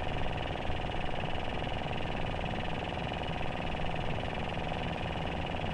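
A steady engine hum at a fixed pitch, running evenly without revving.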